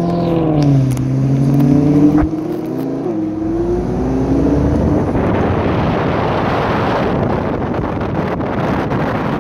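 Lamborghini V10 engine running ahead, its pitch rising and falling, with a sharp click and a drop in level about two seconds in. After about five seconds it fades under wind rushing past the microphone of the car that is following.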